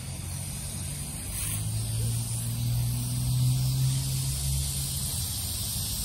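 A steady low rumble with the hiss of water spray from lawn sprinklers watering the grass. The hiss grows stronger near the end.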